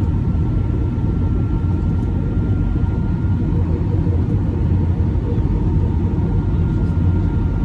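Steady cabin noise inside an Airbus A319 airliner: an even low rumble of the jet engines and airflow, with a faint steady whine above it.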